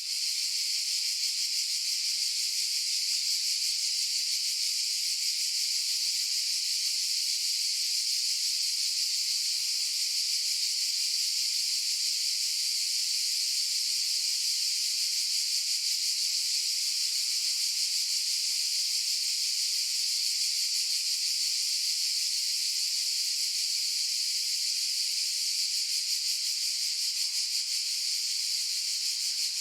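A chorus of cicadas buzzing in a steady, unbroken high-pitched drone.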